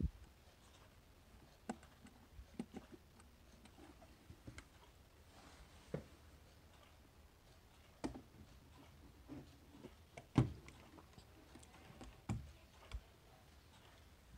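Scattered light clicks and knocks, irregularly spaced, as a wall clock is handled by its rim, the strongest knock about ten seconds in.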